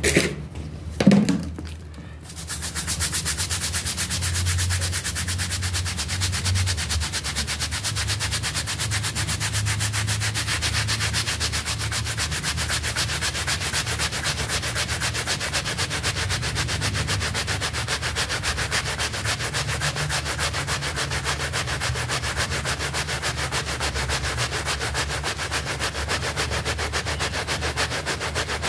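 Stiff-bristled hand brush scrubbing a wet, soapy loop-pile mat in rapid, even back-and-forth strokes, bristles rasping through the foam. It is preceded by a couple of brief knocks in the first two seconds.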